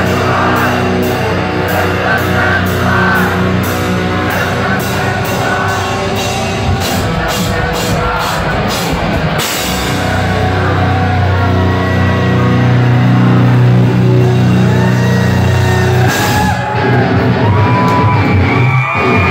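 Alternative metal band playing live at full volume, with distorted guitar and bass over drums. Hard drum and cymbal hits keep a steady beat for about the first ten seconds, then drop away, leaving long, held low guitar chords.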